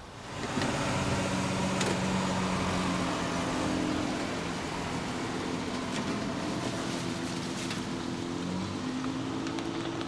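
A central air conditioner's outdoor condenser unit starts up about half a second in and runs steadily, its motors humming under the rush of the fan.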